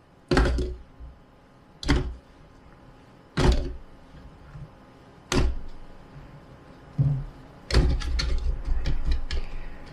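Hard plastic clunks from handling a Ninja food processor bowl and its parts: five separate knocks a second or so apart, then a few seconds of steady clattering and clicking near the end.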